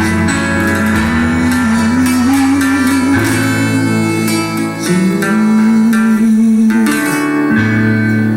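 Forró band music: a plucked-string melody over sustained chords, with steady percussion strokes.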